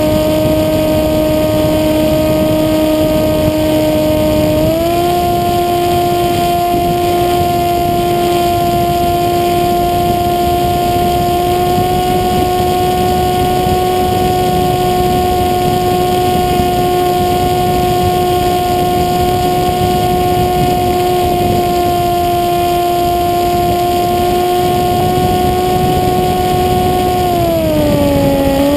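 The electric motor and propeller of a depron flying wing, heard from the onboard camera, running with a steady whine over a rush of wind. The pitch steps up a little about five seconds in as the throttle opens, holds, and drops near the end as the throttle eases.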